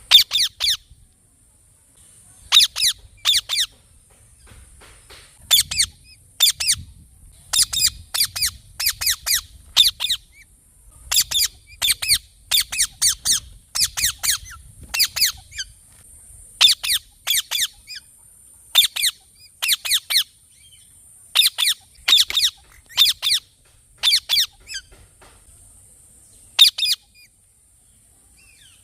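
Parrot calling with sharp, high, screechy calls in quick runs of two to five, with short pauses between runs; the calls stop a little before the end. A steady faint high hiss runs underneath.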